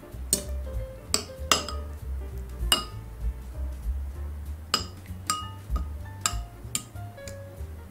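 Metal kitchen tongs clinking against a ceramic bowl several times at irregular moments while turning meat in egg wash, over soft background music.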